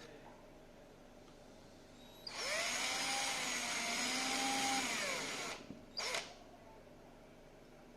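Small power drill boring holes through a laptop's plastic body panel. It spins up with a rising pitch, runs for about three seconds and winds down, then gives one brief second burst.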